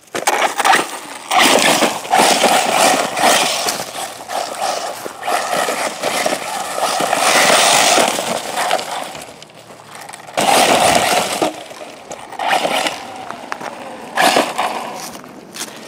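Arrma Typhon 6s 1/8-scale electric RC buggy driving hard over dirt, gravel and dry leaves. Its tires give a gritty, crackling rush that comes in several surges as it speeds up and slows.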